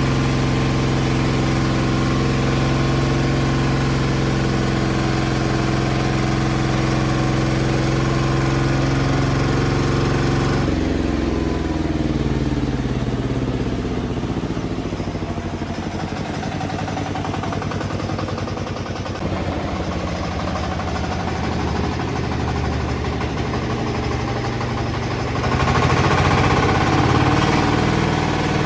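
Horizontal bandsaw sawmill machine running steadily with an even hum. About ten seconds in its pitch drops away as it slows, leaving a rougher, quieter running. It gets louder again near the end.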